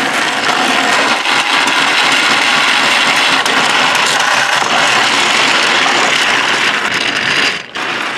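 Battery-powered toy train's motor and gears running steadily as it hauls coaches along plastic track. The sound drops out briefly near the end, then picks up again.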